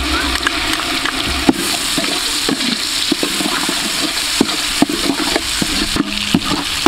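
Curry paste and chopped aromatics frying in hot oil in a large metal pot, sizzling steadily. A spoon scrapes and knocks against the pot a number of times as it is stirred.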